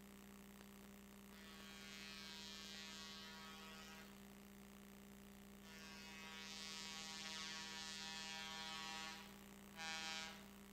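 Locomotive horn sounding two long blasts and then a short one as the train nears a road level crossing. A steady electrical hum runs underneath.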